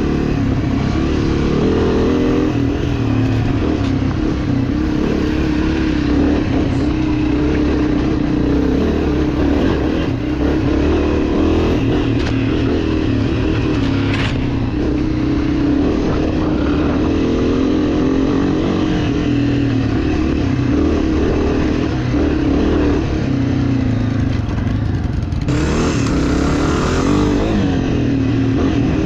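ATV engine running continuously on a trail ride, its pitch rising and falling with the throttle. Near the end, a rushing noise lasts about two seconds.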